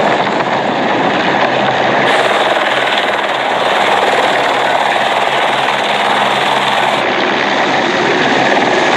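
Helicopter's rotor and engine running loudly at close range as it comes in to land, a steady dense rush of noise.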